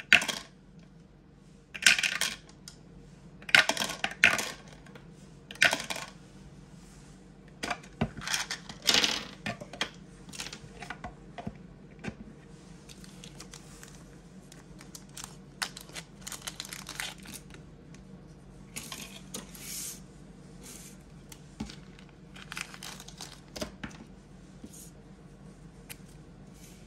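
Plastic polyhedral dice dropped down a hammer-shaped dice tower and clattering out into its tray, several separate rolls in the first ten seconds or so. After that come quieter clicks and rustling as a clear plastic sleeve and card are handled.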